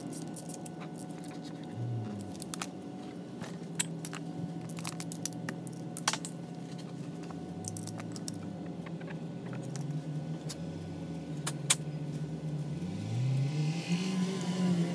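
Sharp metal clicks and knocks from handling and reassembling a brushed 48 V golf cart motor, over a steady low hum. Near the end a whir rises and then falls in pitch.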